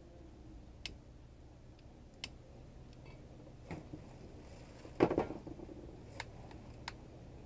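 Scattered sharp clicks and knocks, about six in all, the loudest a short cluster about five seconds in, over a low steady hum.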